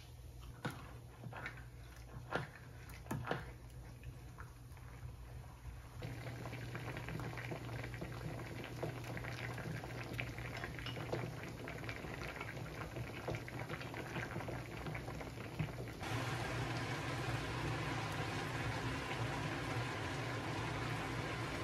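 Food cooking on a stovetop: a dense, steady bubbling crackle, with a few light clicks in the first few seconds. It gets louder in steps about six seconds in and again partway through.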